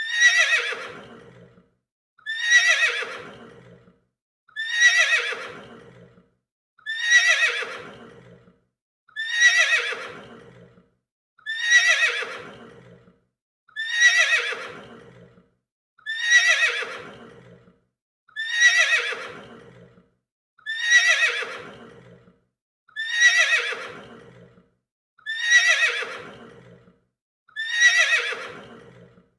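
Horse neighing: the same whinny repeated about thirteen times, one a little over every two seconds. Each call starts high and falls away in pitch, with short silences between.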